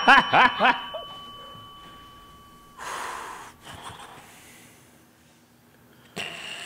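A man's laughter trailing off in the first second, over a steady high ringing tone that cuts off about three seconds in. A sharp breathy exhale through the nose comes about three seconds in, and another breathy noise near the end.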